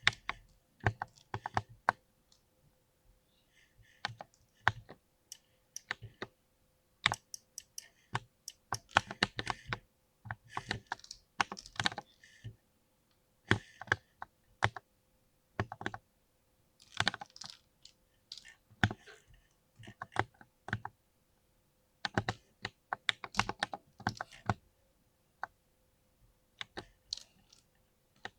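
Mechanical keyboard with a soft, creamy key sound being typed on in irregular bursts of keystrokes with short pauses between them.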